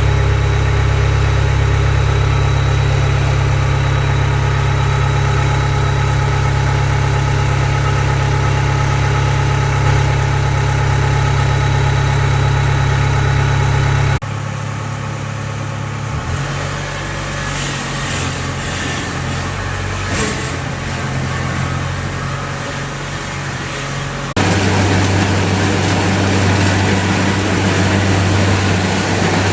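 Diesel engine of a Kubota DC70 combine harvester running steadily with a deep hum. The sound cuts abruptly about 14 s in to a quieter stretch with scattered clicks, then cuts back to a loud steady engine run about 24 s in.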